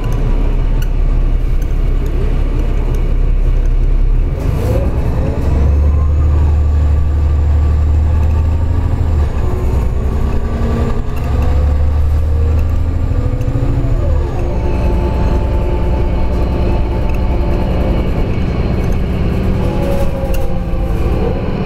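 Flyer D40-LF diesel transit bus heard from inside the cabin while driving: a steady low engine drone with whining drivetrain tones that rise and fall as the bus speeds up and changes gear.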